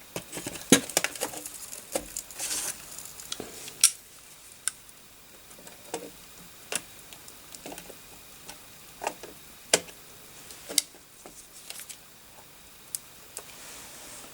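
Irregular small clicks and taps of metal tools handling the board at a solder pot, with a short sizzle about two seconds in, typical of flux meeting hot solder.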